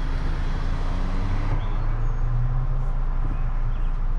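Car idling at a standstill with the sunroof open: a steady low engine hum with outside traffic noise coming in through the roof. A faint motor whine stops about a second and a half in, as the power sunroof finishes opening.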